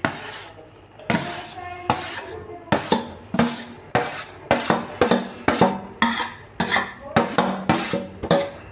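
Steel utensil knocking and clinking against a stainless steel cooking pot as boiled rice is tipped and tapped off it into the pot, with repeated sharp clinks, roughly two to three a second, each ringing briefly.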